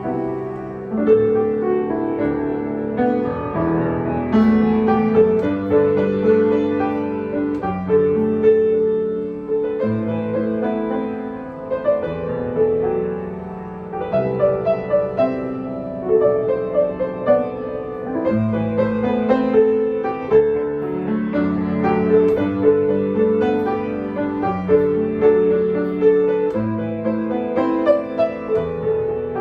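Yamaha C7 grand piano played: a slow melody in the middle register over held chords, the notes sustaining into one another.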